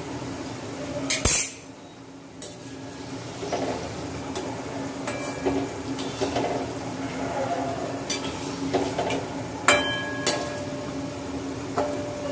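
Pithe deep-frying in oil in a steel wok, sizzling, with a slotted steel spoon scraping and clinking against the wok and a steel colander. The loudest clinks come about a second in and near ten seconds, the second one ringing briefly.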